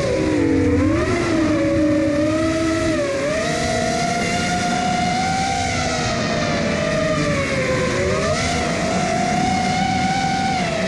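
FPV quadcopter's brushless motors and propellers whining, the pitch dipping near the start and again about eight seconds in, then climbing back as the throttle is eased off and pushed again.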